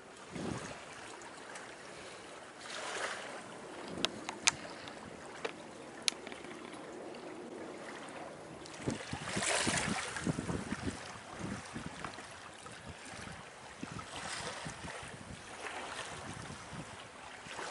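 Choppy river water splashing and rushing along a sailboat's hull, with wind buffeting the microphone, swelling louder a few times. A few sharp clicks stand out a quarter to a third of the way through.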